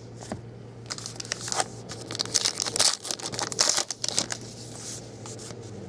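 A trading card pack wrapper being torn open and crinkled by hand: a dense run of crackling and tearing from about a second in, dying away past the middle.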